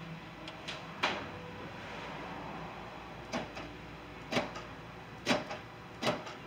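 Power door lock actuator in a 2005 Ford E350's rear cargo door, newly installed, clunking as the lock and unlock buttons are pressed: five sharp clunks, the last four about a second apart, some followed by a lighter click.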